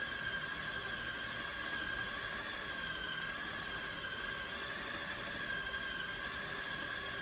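Electric food processor motor running with a steady high whine, grinding beef and pork into mince.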